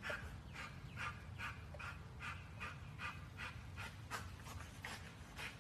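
American bully dog breathing hard in quick panting puffs, about two or three a second, through its nose while its jaws stay clamped on a hanging spring-pole rope, the heavy breathing of hard exertion.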